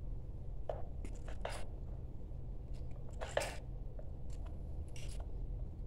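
Pliers working insulated copper wire: a handful of short crunching clicks and scrapes as the blue neutral conductors are gripped and twisted together, the loudest a little past the middle.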